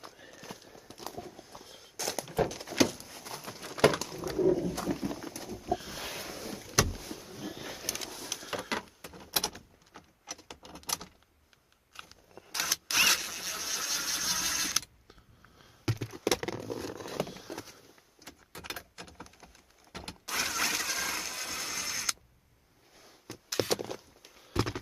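Clicks, knocks and metallic rattling as the 8mm bolts of a Ford Ranger armrest bracket are taken out, with two steady runs of about two seconds each from a drill turning the socket.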